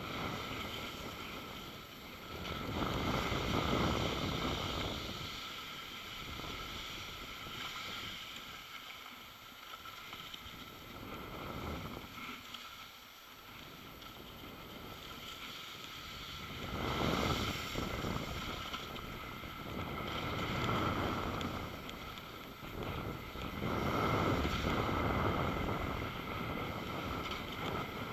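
Wind rushing over the microphone and skis sliding over snow on a downhill run. The noise swells and eases every few seconds with the turns.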